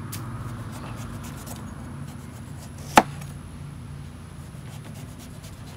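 A knife cutting away the rind of a breadfruit, with faint scraping and small ticks and one sharp knock of the blade about three seconds in.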